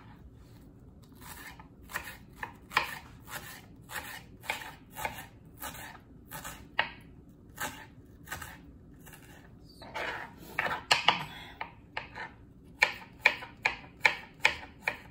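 Kitchen knife slicing shallots thinly on a plastic cutting board: a series of separate knife taps on the board, about two a second, quickening into a faster run near the end as garlic cloves are sliced.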